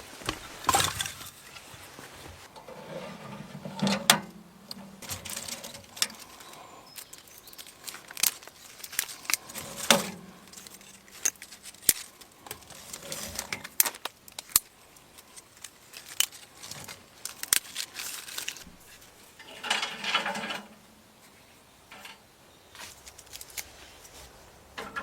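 Irregular sharp clicks and knocks, with a few short rustling, scraping bursts, as of objects being handled.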